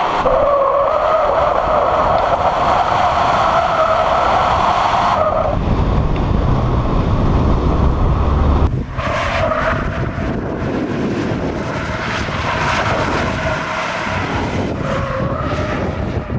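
Nissan 200SX S13's turbocharged CA18DET four-cylinder engine running hard, with the rear tyres squealing as the car drifts. About nine seconds in the sound turns more distant, the tyre squeal still there under crackling wind noise.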